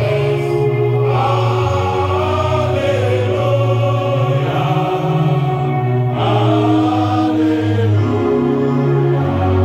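A group of voices singing together over held low bass notes, like a choir singing a hymn-like song.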